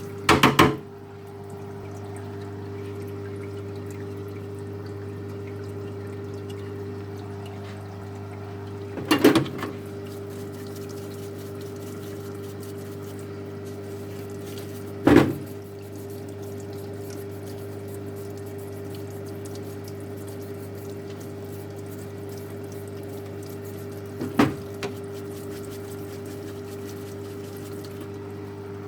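A steady machine hum runs throughout, broken by four sharp knocks spread across it.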